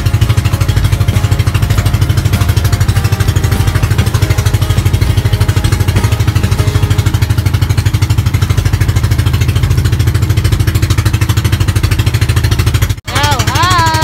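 Small motorboat engine running steadily under way, a fast even chugging that drops out for a moment near the end.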